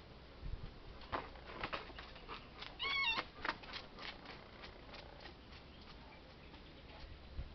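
A domestic cat gives one short, wavering meow about three seconds in, amid a string of quick, high chirps.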